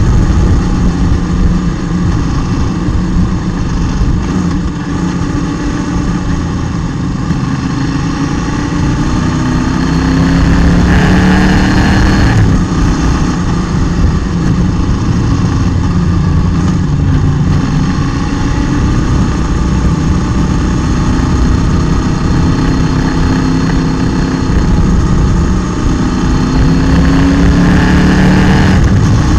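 Motorcycle engine running under way, its pitch climbing several times as the bike accelerates, over a heavy rumble of wind noise on the bike-mounted microphone.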